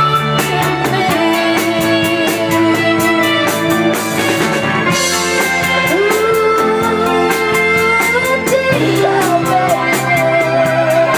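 A live rock band playing: drum kit keeping a steady beat, electric guitar, bass and keyboard, with a woman singing the lead melody.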